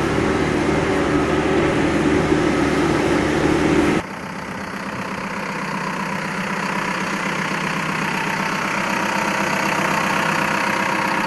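Caterpillar 420E backhoe loader's diesel engine running while the machine drives, heard from inside the cab. About four seconds in, the sound cuts suddenly to the engine idling steadily, quieter.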